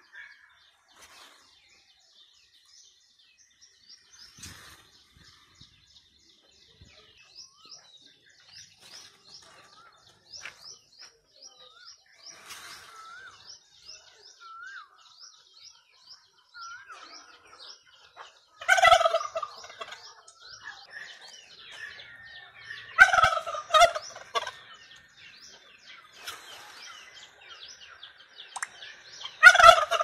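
Domestic turkey toms in strut gobbling: three loud, rattling gobbles in the second half, a few seconds apart, the last one near the end. Faint, rapid high chirping of small birds runs under the first half.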